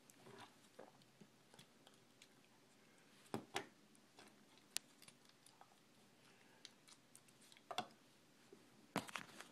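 Mostly quiet, with a handful of faint, sharp clicks and taps of hard plastic action-figure parts being handled and set down on a table, a few seconds apart.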